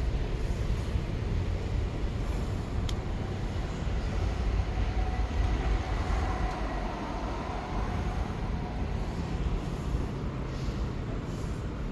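Steady street traffic noise, swelling for a few seconds in the middle as a vehicle passes.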